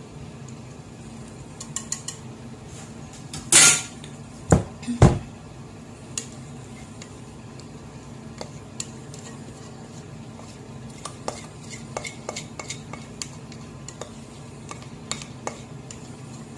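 A utensil scraping and clinking against a glass mixing bowl as the last of a runny cake batter is scraped out into a glass baking dish. Scattered light clicks and scrapes, with a short loud scrape and two sharp knocks about four to five seconds in, then a run of light ticks near the end.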